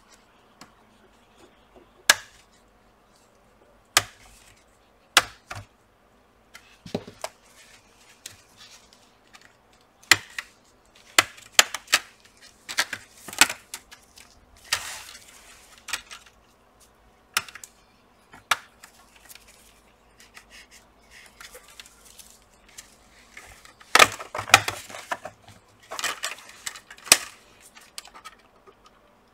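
Plastic clips of a laptop's display bezel clicking and snapping as a thin pry tool works around the screen edge. Irregular sharp clicks come one by one, with a quick cluster of them near the end.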